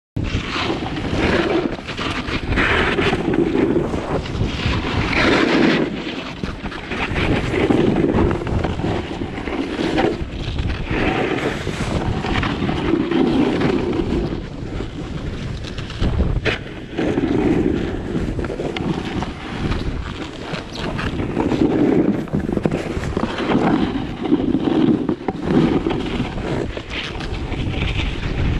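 Wind rushing over a moving camera's microphone and snowboard edges scraping and carving through snow, swelling and easing every couple of seconds with each banked turn.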